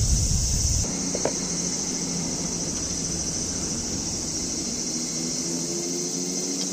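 Steady, high-pitched chorus of summer cicadas. Wind buffets the microphone for about the first second.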